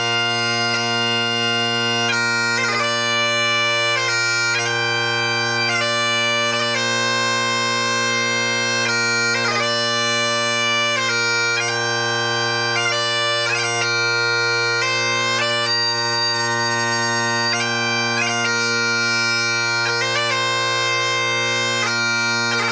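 Solo bagpipes playing a slow tune over a steady drone.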